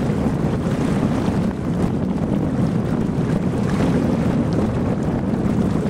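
Steady wind buffeting the microphone, with water rushing along the hull of a MacGregor 26M sailboat sailing at about 5 knots.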